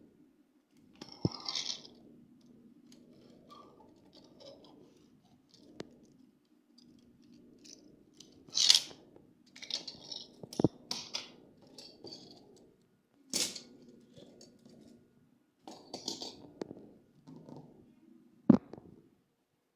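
Hands unpacking small toy cars: irregular rustling and crinkling of packaging, with three sharp clicks of hard plastic knocking.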